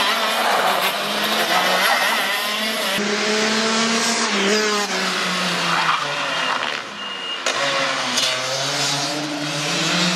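Shifter karts' two-stroke engines at high revs through the corners, the pitch rising under acceleration and dropping off on the brakes and at the shifts. The sound changes abruptly about three seconds in and again past the middle.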